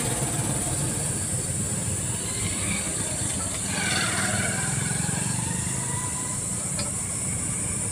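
Steady low engine drone with a fine rapid pulse, under a constant high hiss.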